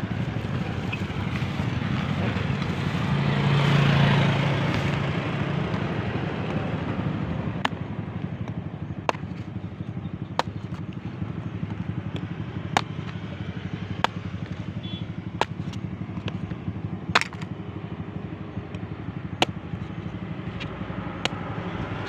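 A vehicle, likely a motorcycle, passes on the road, swelling about four seconds in over a steady low rumble. From about eight seconds on, a large knife chops into a young green coconut, a sharp knock every second or two, about ten in all.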